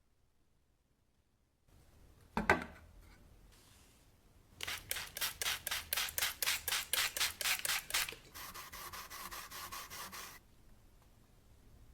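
Abrasive hand scrubbing of rusty metal: about four rubbing strokes a second, then faster, denser rubbing with a higher steady tone, which stops shortly before the end. A single sharp metal knock comes about two and a half seconds in, before the scrubbing starts.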